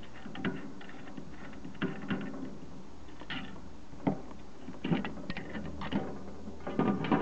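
Irregular metallic clicks and knocks as the bridge rectifier's metal mounting plate, bolts and terminals are handled for refitting. The clicks come every second or so and grow more frequent toward the end.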